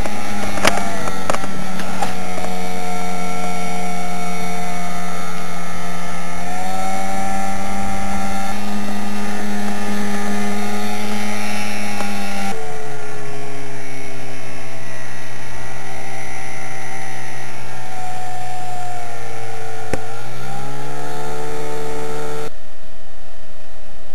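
Boat motor running steadily under way. Its pitch drops clearly about halfway through and rises again near the end.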